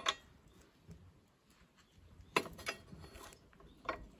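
Short metallic knocks and clicks as a greased steel pivot shaft is worked into a motorcycle center stand's pivot hole: a sharp knock at the start, two more about two and a half seconds in, and one near the end.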